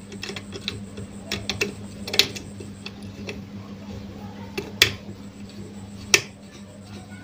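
Small irregular metal clicks and ticks from a sewing machine's thread-tension assembly as the knurled tension nut is screwed onto its stud over the spring and discs. There are three sharper clicks, about two seconds in, near five seconds and about six seconds in. A steady low hum sits underneath.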